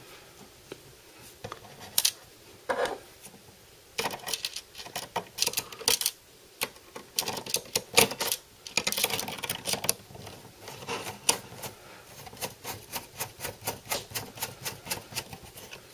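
A small screwdriver turning a screw into the drive tray's aluminum rail: irregular clicks and scrapes, settling in the last few seconds into a steady run of ticks about three to four a second.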